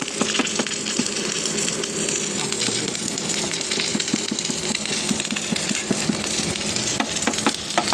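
Automatic welding machine running in a test weld: a steady electrical hum under a dense, irregular crackle of sharp clicks.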